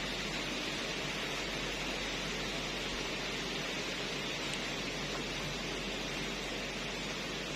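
Steady hiss of background noise, strongest in the upper-middle range, with a faint low hum underneath and no distinct events.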